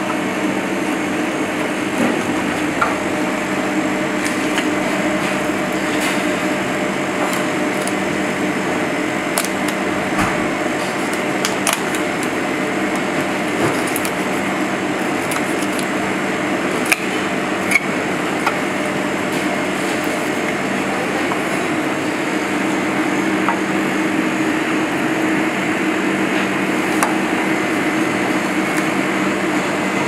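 Steady hum of kitchen ventilation running throughout, with a few light clicks and taps from knife work on a plastic cutting board as a fish is filleted.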